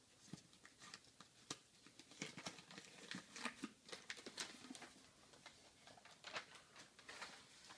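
Faint rustling of packing material with scattered light taps and clicks as drink cans are unwrapped and handled on a table.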